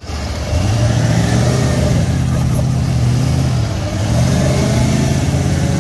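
GMC Sierra HD's Duramax diesel V8 revving hard under load as the truck's wheels spin in soft sand, easing briefly about two-thirds of the way through and then pulling again.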